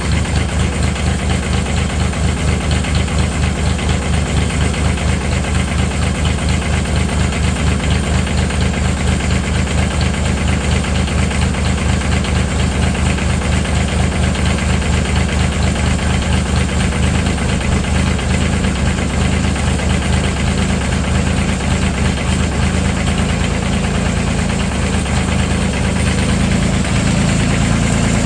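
Lo-Boy tractor's diesel engine idling with an even, rhythmic chug just after a cold start, still warming up; the revs pick up slightly near the end.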